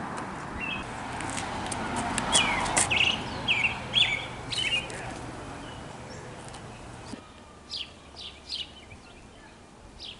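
Small birds chirping: a quick run of short, high, downward-slurred chirps in the middle, then a few more spaced chirps near the end, over a steady background hiss that drops away about seven seconds in.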